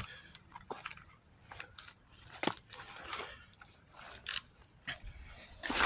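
Footsteps crunching and scraping on dirt while someone climbs down a slope, about one step a second at an uneven pace.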